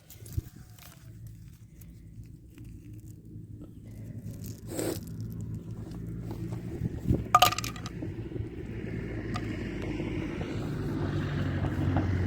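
A motor vehicle's engine approaching, its low hum growing steadily louder, with a few knocks and rattles along the way.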